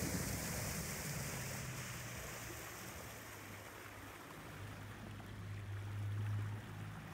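A small boat's motor running at low speed, a steady low hum that swells about five seconds in and drops off near the end, with a hiss of water and wind that fades out over the first couple of seconds.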